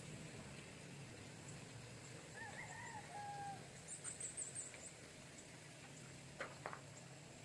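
A faint animal call about two seconds in, with a wavering pitch, followed by a quick run of very high chirps and then two sharp clicks near the end.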